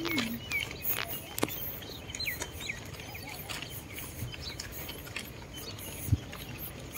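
Footsteps and small taps while walking on paving, with a few short high bird chirps in the first three seconds and a single low thump near the end.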